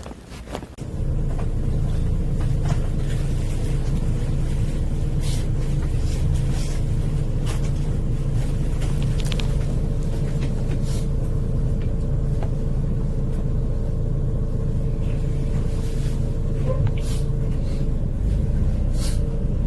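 A vehicle's steady low rumble with a constant engine hum. It starts about a second in and cuts off abruptly near the end.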